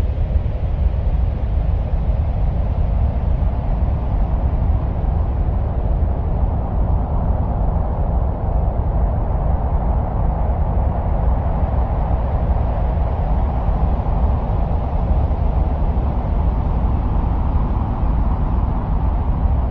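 A steady, deep, wind-like noise with no breaks, presented as the sound of the wind on Mars.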